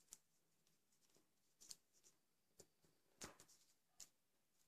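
Faint crinkles and crackles of paper being handled and creased as the arm ends of a taped paper-strip boomerang are folded up, a few short sounds spread about a second apart.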